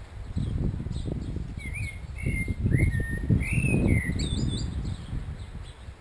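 A blackbird singing one fluting, warbled phrase that ends in a high squeaky twitter, over a low gusty rumble.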